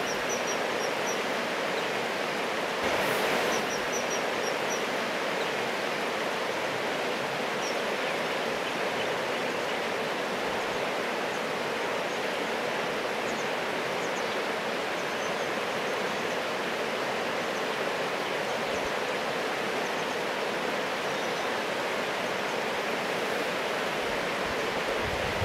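Shallow river water rushing steadily over a stony bed. Faint, high bird chirps come through in short runs, mostly in the first half.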